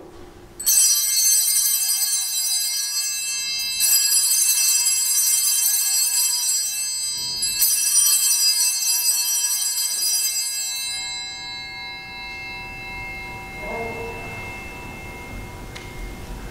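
Altar bells rung three times, about three seconds apart, marking the elevation of the consecrated host. Each ring is a bright cluster of high tones that rings on, and the last fades away over several seconds.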